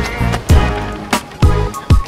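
Background music with a steady drum beat: deep kick-drum thumps and sharp snare hits under sustained melodic notes.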